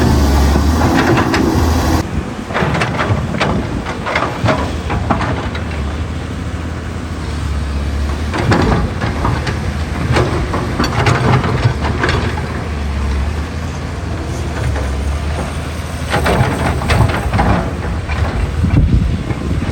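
Excavator working: the diesel engine runs with a steady low drone while repeated irregular clanks and scrapes come from the bucket and tracks working soil and rock.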